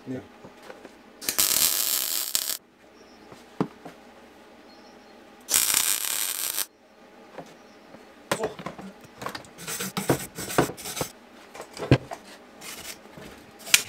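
MIG welder striking an arc twice, each a steady crackling hiss of a second or so, a few seconds apart. Then irregular scraping and tapping from a wire brush worked over the fresh weld.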